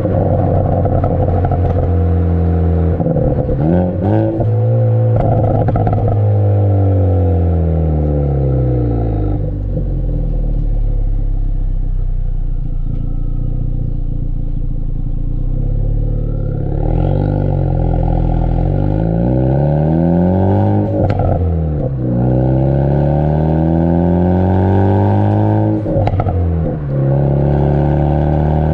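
Turbocharged Ford Focus ST exhaust through a Borla cat-back, heard right at the tailpipe, revving up and falling back through several rounds of acceleration and lifting off. Sharp pops and crackles sound on the overrun, a few times, from a pops-and-crackles tune. There is a quieter cruising spell in the middle.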